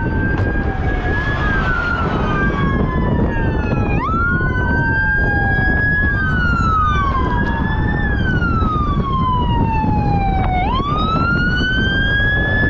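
Several sirens wailing at once, their pitch rising sharply and then sliding slowly down, over and over every few seconds, over a steady low rush of wind noise.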